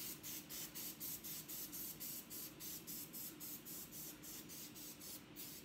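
Cooking-oil sprayer squirted over raw cut fries in an air-fryer basket: a quick run of short hissing sprays, about five a second, that stops about five seconds in.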